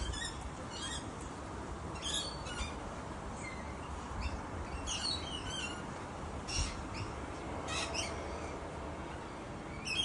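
Australian magpie giving short high calls, a dozen or so scattered through, over a steady background hiss.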